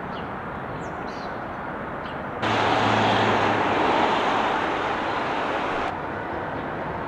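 Outdoor street ambience: a steady noise of wind and traffic. It turns abruptly louder and fuller about two and a half seconds in, with a low hum for its first second, and drops back about six seconds in.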